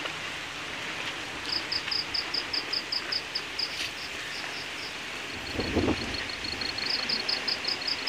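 A cricket chirping in fast, even, high-pitched pulses, about six a second, in two bouts, over a steady night-time hiss. A short, muffled low noise comes about halfway through.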